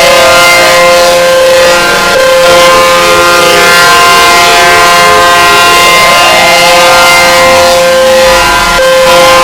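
Outdoor tornado warning siren sounding loud and close, several steady tones at once. About two seconds in one tone drops in pitch, and around six seconds in a tone glides back up.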